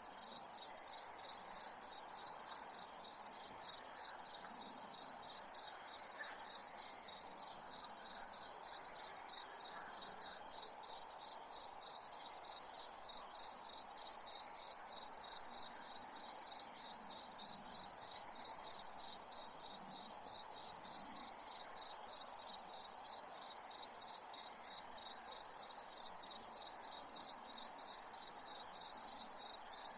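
Crickets chirping at night: a high, shrill chirp repeated rapidly and evenly without a break, over a faint background hum of the night.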